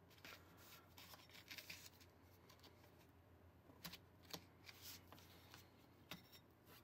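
Near silence, with faint rustling and a few light clicks of small items being handled by hand.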